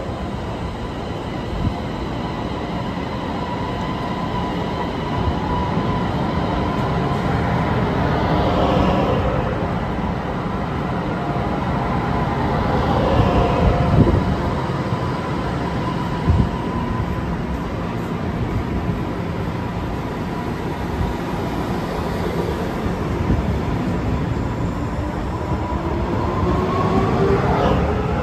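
EMU500 electric commuter train moving along the platform close by, with a steady rolling rumble and a constant electric motor whine. Two short knocks come around the middle. Near the end the whine rises in pitch as the motors pick up speed.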